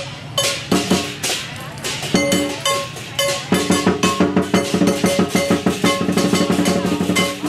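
Lion dance percussion: a big drum beaten together with ringing cymbals, first in scattered accented strikes, then from about halfway in a fast, even run of beats.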